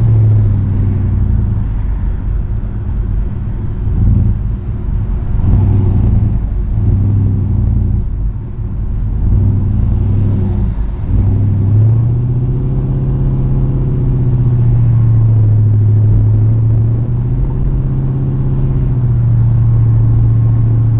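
The 400 cubic-inch big-block V8 of a 1973 Chrysler Newport, heard from inside the cabin while driving at about 1400 to 1900 rpm. The engine note rises and falls over the first half, then holds a steady low drone from about midway.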